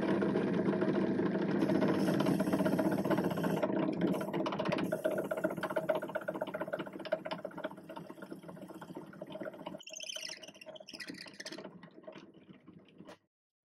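Drill press running, its bit boring into a small wooden handle knob, a steady motor hum with whirring from the cut. Near the end it gets quieter, with a falling whine, then cuts off sharply.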